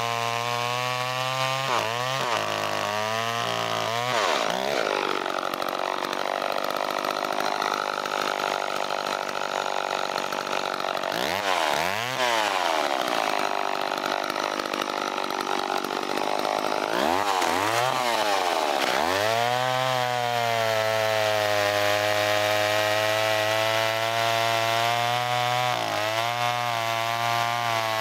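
John Deere 40V two-stroke chainsaw running at high throttle while cutting through logs, its engine pitch dropping and rising again several times between cuts.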